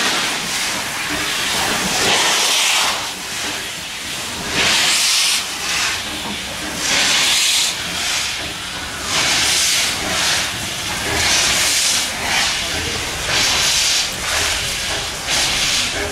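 USATC S160 steam locomotive giving off loud bursts of steam hiss at a slow, regular beat of about one every two seconds, coming slightly quicker towards the end: the slow exhaust beat of the engine starting to move off.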